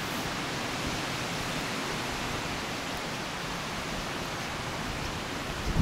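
Wind blowing through the leafy trees and grass: a steady, even rushing hiss.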